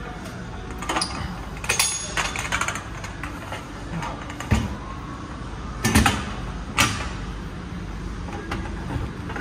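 A few sharp metallic clanks and knocks over a steady low rumble, the loudest a little past halfway through.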